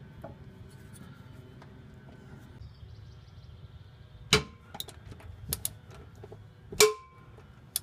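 Hand tools clinking as a ratcheting combination wrench is worked onto a socket extension: a few sharp metal clinks. The two loudest come about four and seven seconds in and ring briefly.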